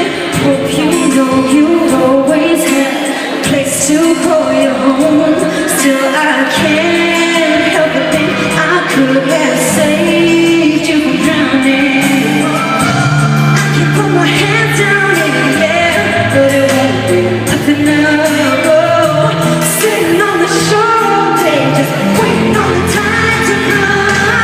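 Live pop ballad: a female lead vocal singing over band accompaniment.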